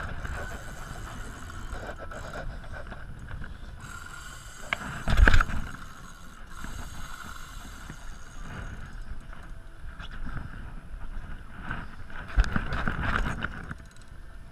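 Continuous noise of a small boat rocking on choppy water, with wind on the microphone, while a fish is fought on a spinning rod. Two short loud knocks come through, one about five seconds in and one near the end.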